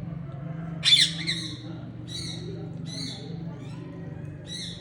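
Short, high-pitched squawking animal calls over a steady low hum: a loud one about a second in, then several fainter ones at roughly one-second spacing.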